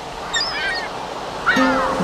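Sea surf washing steadily, with short high chirping calls about half a second in and a louder, falling cry near the end. Guitar music comes in at the very end.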